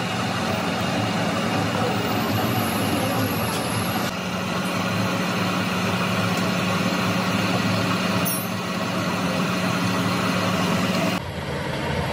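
Metal lathe running steadily with a constant low hum while a drill bit in the tailstock chuck bores into the end of a spinning steel shaft. The sound changes abruptly about four seconds in and dips briefly near the end.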